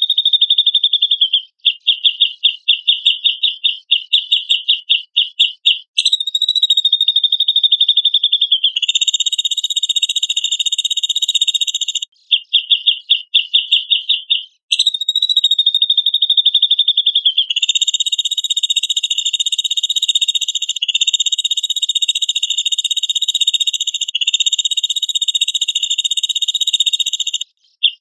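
Cucak jenggot (grey-cheeked bulbul) singing incessantly in high, rapid pulsing trills. The trills come in runs of a few seconds, some held as one long unbroken trill, with brief breaks between them.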